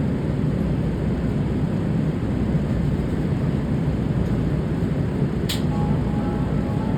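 Steady low rumble of a Metro A Line light rail train heard from inside the car. About five and a half seconds in there is a brief high hiss, followed by faint thin high tones near the end.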